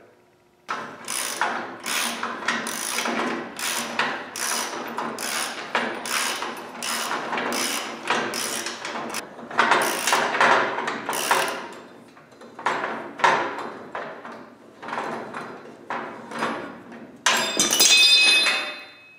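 Hand ratchet wrench clicking in quick repeated strokes as the bumper bolts are worked loose. Near the end comes a louder continuous noise with a high ringing edge, about a second and a half long.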